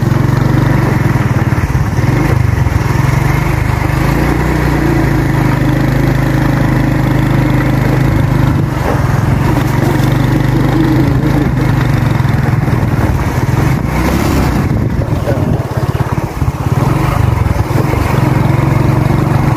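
A small motorcycle engine running steadily at an even, low speed, with a strong low hum.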